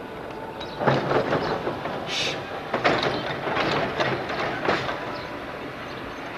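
Sóller electric tram rolling slowly along its track, its wheels clattering and knocking over rail joints, with three sharper knocks about a second, three seconds and five seconds in. A short hiss comes about two seconds in.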